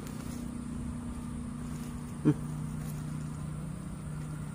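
Steady low mechanical hum, with one short grunt-like voice sound a little over two seconds in.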